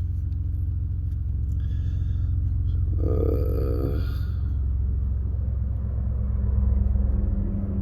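Steady low hum or rumble, with a brief muffled sound about three seconds in.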